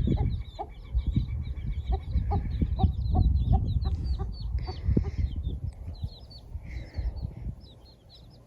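Mother hen clucking in short low notes while her chicks peep in quick, high cheeps throughout, over a low rumble.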